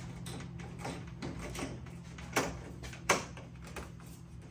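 Hands pressing a Corvette rear-window trim molding down onto its retaining clips along the glass edge, with short sharp clicks, the two loudest about two and a half and three seconds in, over a low steady hum.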